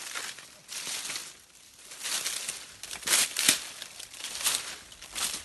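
Footsteps crunching through dry leaf litter and cut brush, an uneven run of crackling, rustling steps.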